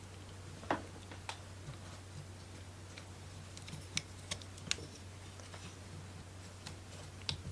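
Scattered light clicks and taps of laser-cut wooden kit pieces being handled and pressed together, about seven in all, over a low steady hum.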